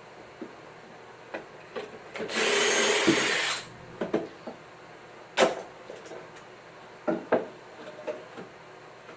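A tool working wood in one loud burst of about a second, with wooden knocks and clicks of pieces being handled before and after it.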